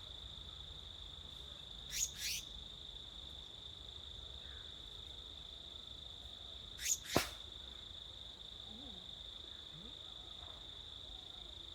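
A steady, high-pitched insect drone, like crickets, with a bird giving a pair of quick, sharp calls that sweep down in pitch, once about two seconds in and again about seven seconds in.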